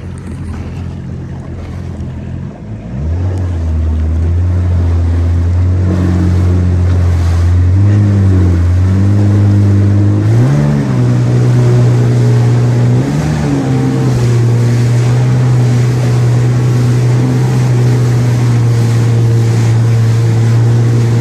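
Jet ski engine running, getting louder and higher in pitch about three seconds in, stepping up again around ten seconds, then holding a steady pitch. Water and wind hiss run underneath.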